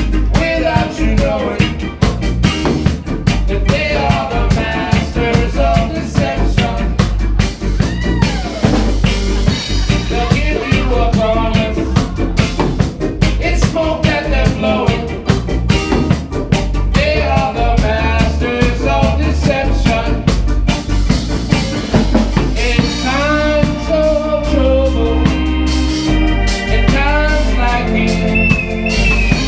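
A reggae band playing over a steady drum-kit beat with a heavy bass line and melodic lines, with the melody coming more to the front in the last several seconds.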